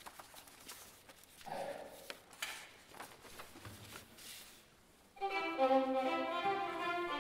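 A few faint knocks and rustles from the hall, then about five seconds in a string orchestra of violins, cello and double bass starts playing together with long held bowed notes.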